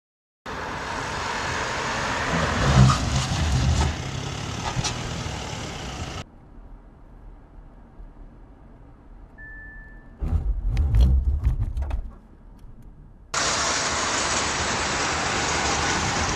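Audi A4 driving on a test track: road and wind noise with a low engine rumble. A short steady beep comes about halfway through, then a few sharp knocks, and steady wind noise on the microphone fills the last few seconds.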